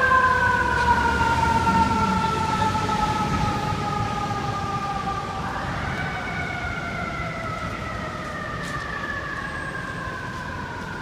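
FDNY fire engine's mechanical siren winding down slowly, spun back up about five and a half seconds in, then winding down again. It grows fainter as the engine drives away.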